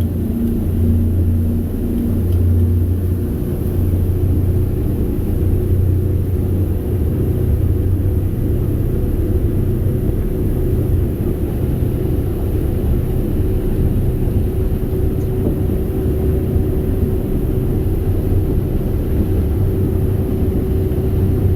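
The boat's twin main engines running steadily underway, a constant low drone with rumble.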